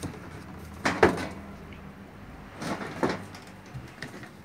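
Two short clattering knocks, each a quick double hit, about a second in and again about three seconds in, the sound of a household object or door being bumped or handled.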